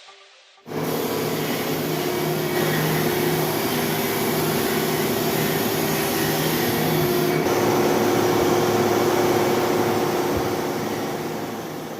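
A steady mechanical running noise with a low hum, starting abruptly about a second in.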